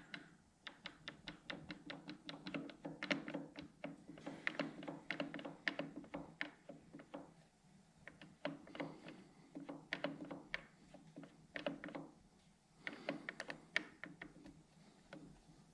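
Steel spur gears in a Smithy CB-1220 XL lathe's carriage gearbox, rocked back and forth by hand: rapid runs of light metal clicks and knocks, in spurts with short pauses, as the teeth take up excessive backlash.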